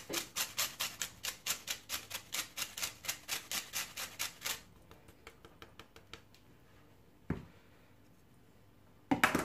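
Lemon being zested on a small metal hand grater, about four rasping strokes a second, fading to a few fainter strokes, then a single knock and a short louder clatter near the end.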